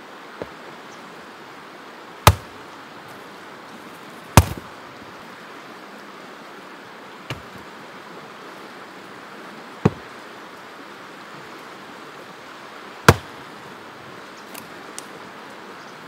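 Axe blows chopping wood: five sharp strikes at uneven intervals over a steady rushing noise.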